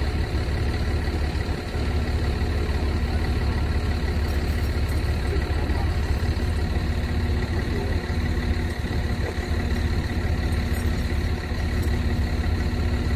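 Engine of a glider-winch cable retrieve truck idling steadily.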